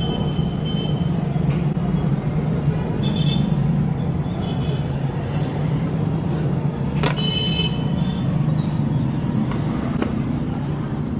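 A steady low drone, like a motor running, with short high-pitched tones now and then and one brief sharp sound about seven seconds in.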